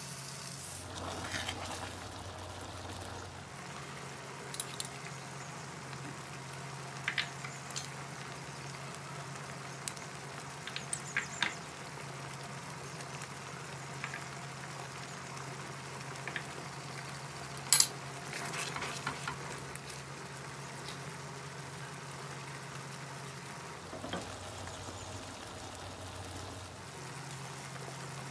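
Cream sauce with meat and mushrooms simmering in a pan, a spatula stirring and scraping against the pan now and then, over a steady low hum; a sharp click stands out about midway through.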